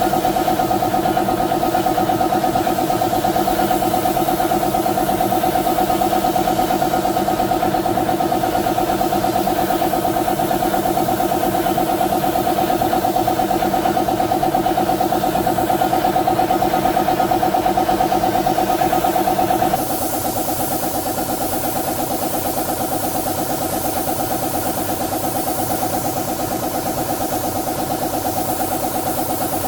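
A motor-driven machine running steadily, a loud drone with a fast even flutter. About twenty seconds in it switches abruptly to a slightly quieter, hissier running sound.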